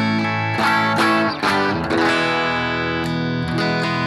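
Electric guitar played through a BOSS GT-1000's Fender Twin-style amp model into a Two Notes Cab M, with no compressor. A few picked chords come in quick succession, then a chord is left ringing from about halfway.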